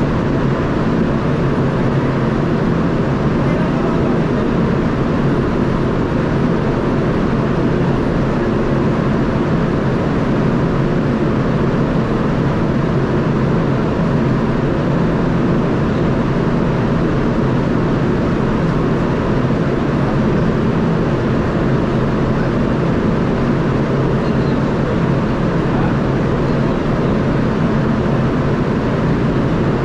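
Steady, unchanging drone of a ship's machinery, a dense hum with a few faint steady low tones in it.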